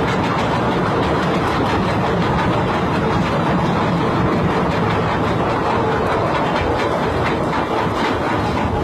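Ship's anchor chain running out uncontrolled, a loud continuous rapid metallic clatter with no let-up: the anchor windlass brake has failed.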